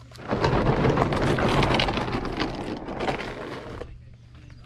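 Plastic kayak hull scraping and grinding over gravel and concrete as the boat shifts on the launch ramp. A coarse, crackling scrape starts just after the beginning, is loudest for the first couple of seconds and dies away a little before the end.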